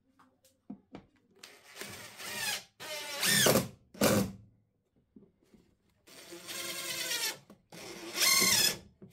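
DeWalt cordless impact driver driving screws into a plywood board, in about five short runs with pauses between them, its motor whine rising and falling in pitch within each run.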